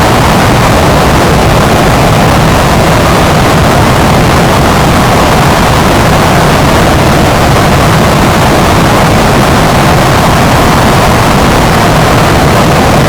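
Loud, steady rushing noise at an even level, with no tones or voice in it.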